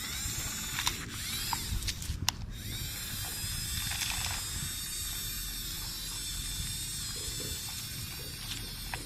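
RC excavator's small electric gear motors whirring as it is worked, a steady high whine with a few sharp clicks in the first couple of seconds.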